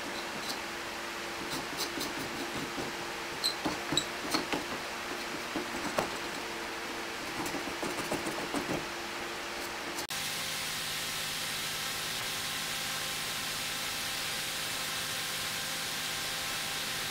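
Hand paint scraper pulled over the old varnish on an oak desk leg in short, irregular scraping strokes, over a steady shop hum. About ten seconds in the strokes stop and only a steady even noise remains.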